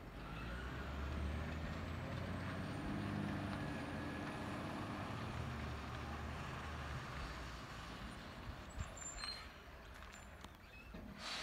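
Rubbish truck's diesel engine running some way off, a low steady hum that swells in the first few seconds and then fades as the truck moves away.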